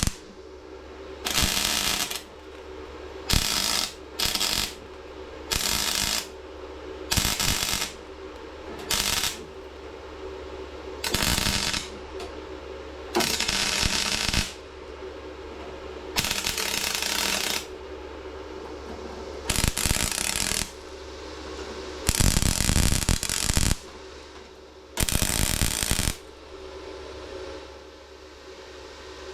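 MIG welder stitch-welding the steel rear body panel: about a dozen short bursts of arc crackle, each half a second to a second and a half long, with pauses of one to two seconds between them. A steady low hum runs underneath.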